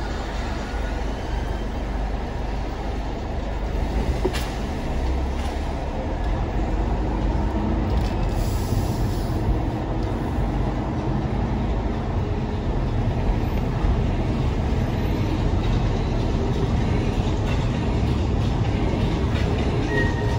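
Low, steady rumble of a car's engine and tyres heard from inside the cabin while driving. It grows a little louder several seconds in as the car gets moving.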